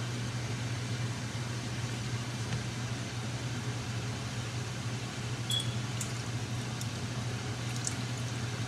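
Steady low hum of a kitchen fan, with a few light clicks of a wooden spatula against a metal pan in the second half.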